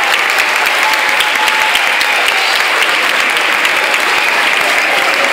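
Audience applause: many people clapping steadily without a break.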